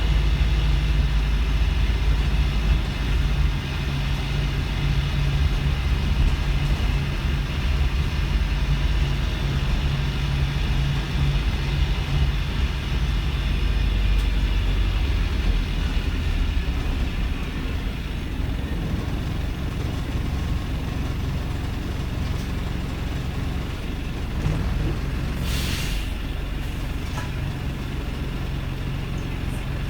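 Wrightbus StreetLite bus's Mercedes-Benz OM934 four-cylinder diesel running with a rough idle. The steady engine note breaks up about 3 s in and settles again near the end, just after a short hiss of air from the bus's air system.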